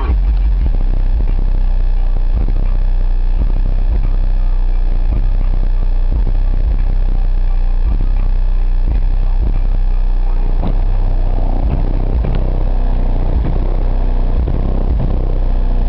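Heavy, distorted bass from a Fi BL 15-inch subwoofer in a ported box tuned to 33 Hz, driven by a Sundown SAZ-1500D amplifier, playing a rap track inside a Honda CRX. Heard from on the car's roof, so mostly the deep bass notes come through, with steady low booming and a constant rattle.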